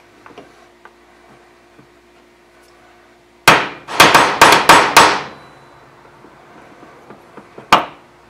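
Small gunsmith's hammer striking a punch, a quick run of about six or seven sharp taps, then one more near the end, driving a roll pin home through an AR-15 gas block to hold the gas tube.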